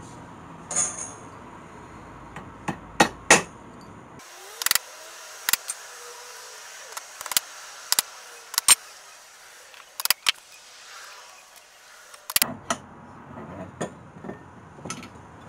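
Irregular sharp metal clicks and clinks at a steel Paramo bench vise as pulled pallet nails are handled and set between its jaws and the vise handle is worked. The loudest pair of knocks comes about three seconds in.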